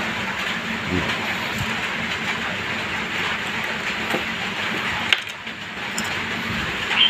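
Steady hiss of light drizzle falling, with one sharp click about five seconds in.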